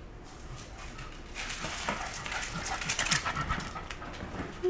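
Dachshund snuffling and snorting in quick, breathy puffs, loudest in the middle.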